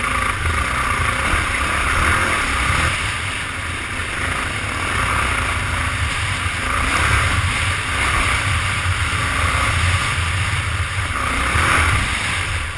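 Motorcycle riding along a gravel dirt track: engine running steadily under a rush of wind on the camera microphone.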